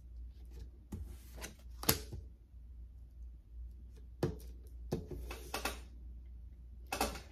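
Tarot cards being handled on a table: about six sharp taps and slaps spread a second or so apart, with a short papery rustle of cards sliding about five seconds in.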